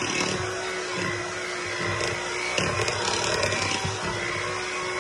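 Electric hand mixer running steadily with a whine, its beaters churning thick cake batter in a bowl.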